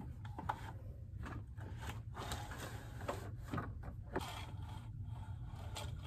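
Horizontal window blind slats clattering and rattling as the blind is handled, in a run of irregular clicks and scrapes, over a steady low hum.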